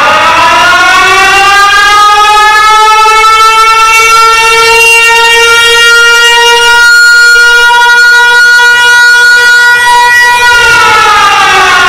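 Loud siren-like wailing tone with many overtones. It winds up in pitch over the first few seconds, holds steady, then winds down near the end.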